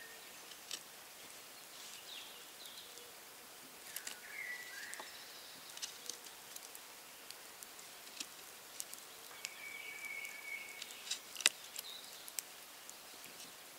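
Knife carving a wooden stick, short clicks and cuts of the blade on the wood, the sharpest near the end. Birds call in the woodland behind: a short call about four seconds in and a longer held whistle later.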